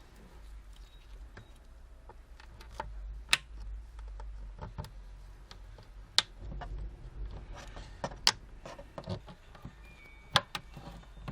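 Plastic retaining clips of a Samsung Galaxy Note 10.1 tablet's back housing snapping loose as the cover is pried off: sharp separate clicks, the four loudest spaced a few seconds apart, with softer clicks between.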